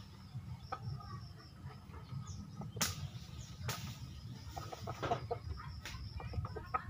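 Fighting rooster on a swinging perch, flapping its wings to keep its balance as the swing is pushed: a few sharp flaps or knocks about three, four and five seconds in, over a low steady rumble.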